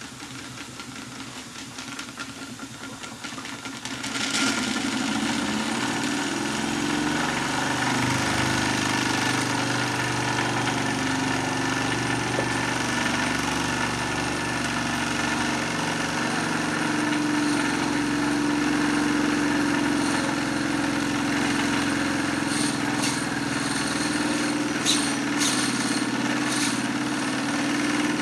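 Wilesco toy spindle press running, belt-driven from a model steam engine: a steady mechanical hum that grows louder about four seconds in, with a few sharp clicks near the end as the press lever is worked by hand.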